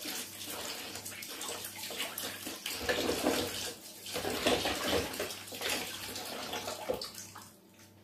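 Kitchen tap running into a sink with splashing as hands are washed under the stream. The water stops near the end.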